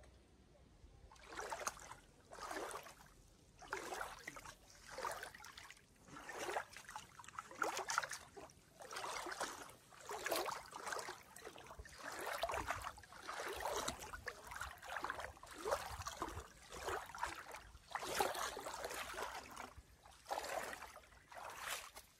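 Swimming strokes in lake water: rhythmic splashing and sloshing, about one stroke a second.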